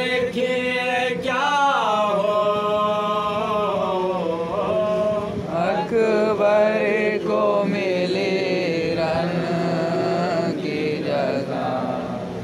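Men chanting a Muharram noha (mourning lament) together, a lead voice reading the verses from a book with others joining in, in long, drawn-out melodic lines.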